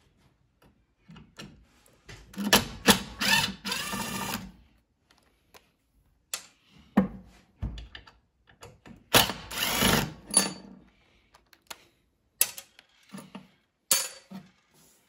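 Makita cordless driver running in two short bursts as it turns a screw in the base of a benchtop planer, with a few sharp knocks of tool handling in between.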